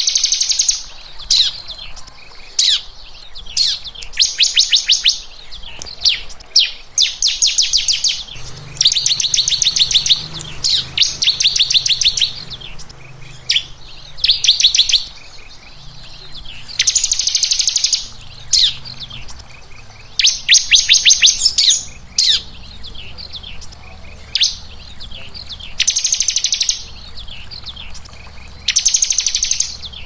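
Songbird singing in rapid-fire 'tembakan rapat' style: repeated bursts of fast, tight, high-pitched trills, each about a second long and a few seconds apart, with short falling whistles between them.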